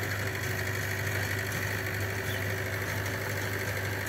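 Tractor engine running steadily at an even speed, a continuous low drone with a fast, even pulse.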